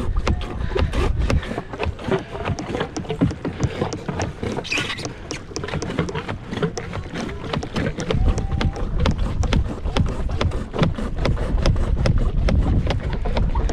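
Water splashing and trickling around a small kayak in many quick, irregular spatters, with wind buffeting the microphone at the start and again in the second half.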